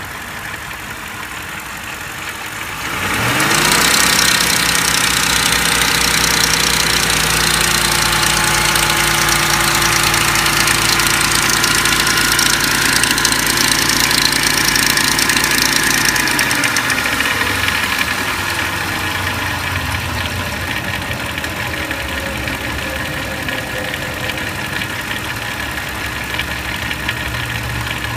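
2004 Lincoln Navigator's 5.4-litre V8 starting about three seconds in, running at a fast idle, then dropping to a lower, steady idle about sixteen seconds in. The engine carries the timing chain noise the owner is demonstrating.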